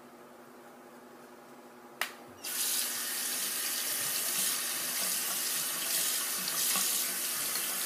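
A click about two seconds in, then a bathroom sink tap turned on, water running steadily into the basin.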